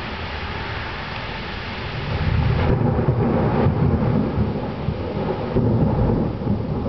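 Heavy downpour hissing steadily; about two seconds in, a long, low roll of thunder builds up and carries on under the rain.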